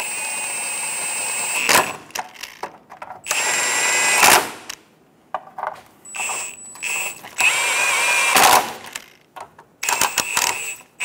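A power tool with a socket runs down the transmission mount nuts in about five short runs of a second or two each. Its motor whines high and steady, with short clicks in the gaps between runs.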